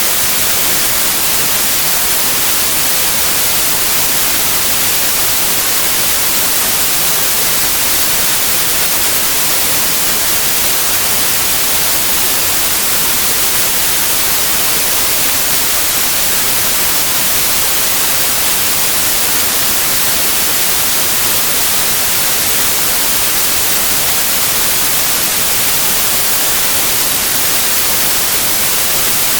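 Television static: the steady, even hiss of an untuned TV, unchanging throughout and strongest in the treble.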